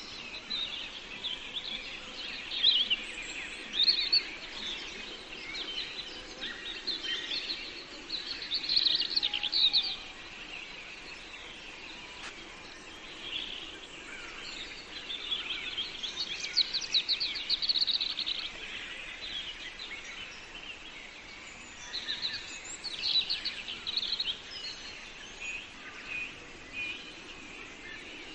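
Small birds chirping and twittering in repeated quick bursts over steady background noise.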